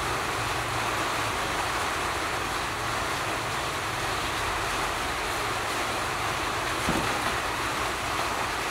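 Steady rushing background noise that holds the same level throughout, with no distinct chewing or other events standing out above it.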